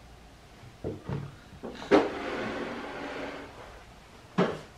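A few knocks and thuds, with a rustling scrape lasting about a second and a half in the middle and one more sharp knock near the end, as a person gets up from a seat at a kitchen counter and moves away.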